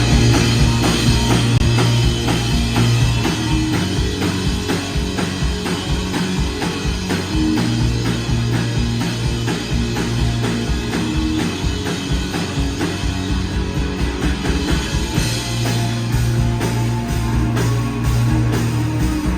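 Heavy rock band playing live: distorted electric guitars and bass holding low, sustained notes over steady, hard-hit drums.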